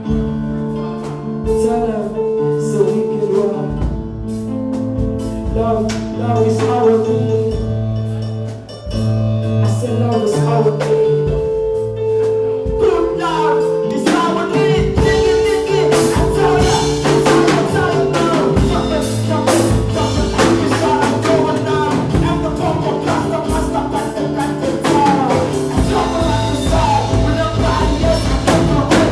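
Live band playing with singing, held instrumental notes and a drum kit; the drums and full band grow denser about halfway through.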